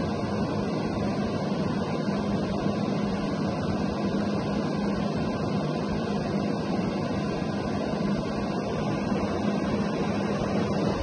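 Frigidaire FFRE103WAE window air conditioner running: steady fan noise with a constant low hum.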